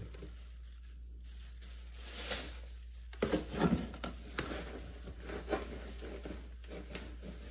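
Plastic litter scoop digging and scraping through granular cat litter in a plastic litter box, the grains rattling and sifting off the scoop in a series of short, irregular bursts, loudest a little over three seconds in.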